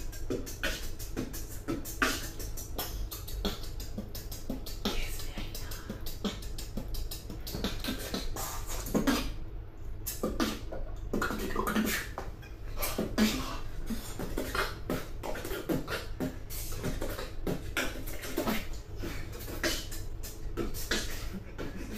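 Human beatboxing: a fast stream of mouth-made kick, snare and hi-hat clicks, with some hummed or sung pitched tones woven in about halfway through.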